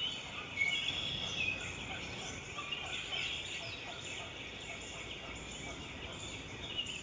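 Birds chirping and chattering in quick, short calls over steady background noise.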